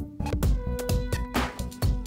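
Background music with a steady drum beat and held pitched notes.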